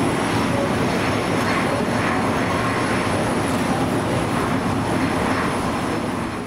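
Bombardier Challenger 650 business jet's twin rear-mounted GE CF34 turbofans running at low power as it rolls out slowly on a wet runway after landing: a steady rush of jet noise with a thin high whine.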